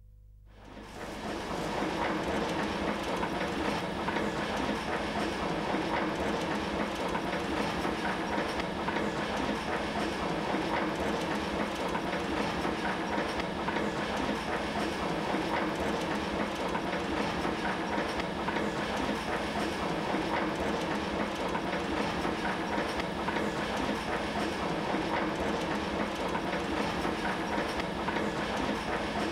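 Cassoli RA C1 toilet-roll wrapping machine running: a steady, dense mechanical clatter that fades in over the first second or two.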